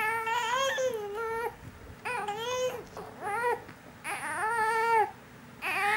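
Young baby crying in a string of about five wails, the first and the last each about a second long, with short ones between. The baby is fussing and fighting sleep well past his bedtime.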